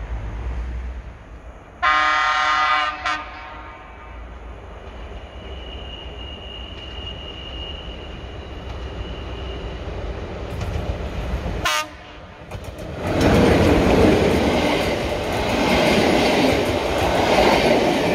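Train horn sounding one short blast about two seconds in, then a train running past close by, its wheels and rail noise loud from about thirteen seconds on.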